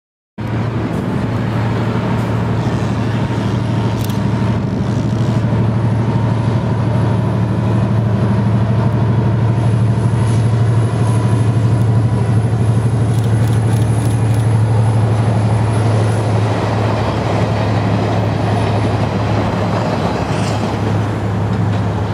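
Irish Rail 071 Class diesel locomotive's EMD two-stroke V12 engine running under power as it hauls a train past: a deep steady drone that swells a little in the middle.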